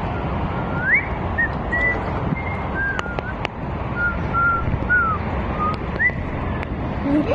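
Wind rumbling on the microphone, with a string of short, thin whistled notes scattered through it, some sliding up in pitch and some sliding down.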